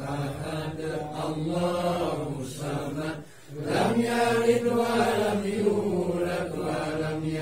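A group of men chanting Arabic tahlilan prayers together in a steady drawn-out melody, with a short break about halfway through before the chant resumes.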